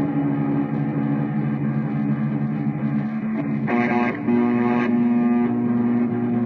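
Live band music led by electric guitar through effects, holding sustained chords over bass, with a louder, brighter chord played about four seconds in.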